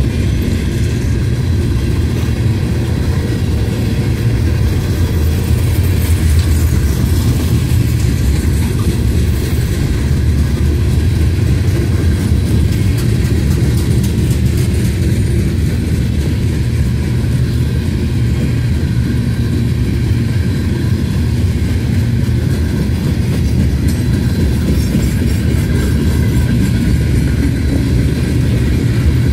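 Covered hopper cars of a freight grain train rolling past, a steady low rumble of steel wheels on the rails.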